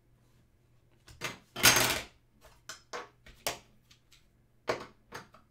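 Trading cards being handled on a tabletop: a string of short rustles and taps, the loudest a half-second rustle about one and a half seconds in.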